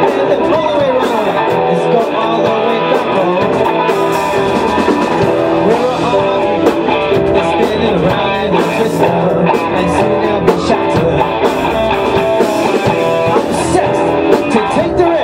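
Rock band playing an instrumental passage: electric guitar with bending notes over drum kit, electric bass and keyboard.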